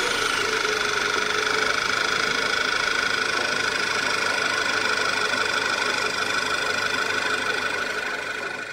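Skoda Superb's four-cylinder petrol engine idling steadily, heard up close in the open engine bay with an air pipe disconnected. A steady high whine runs over the idle, and the sound fades out near the end.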